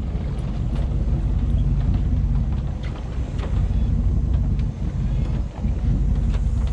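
Boat engine running steadily with a low drone, with a few faint clicks over it.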